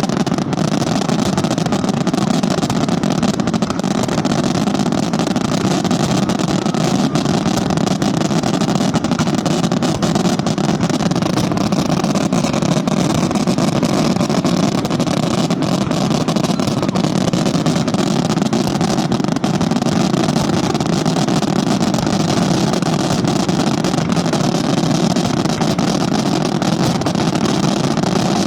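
Italian fireworks barrage (scarica): a continuous rapid-fire string of bangs so dense that they merge into a steady rumble, holding level with no break.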